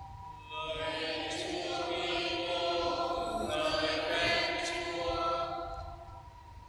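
Choir and congregation singing the short acclamation that answers the end of the Gospel reading, many voices together, fading out near the end.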